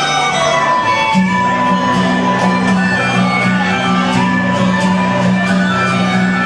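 Cumbia music playing: a steady bass note held under a melody, with evenly repeating high percussion strokes.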